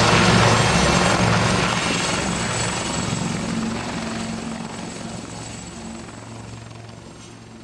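Westland Lynx AH7 helicopter, with its rotors and twin Rolls-Royce Gem turboshafts running, flying low and steady in pitch. It fades evenly as it moves away.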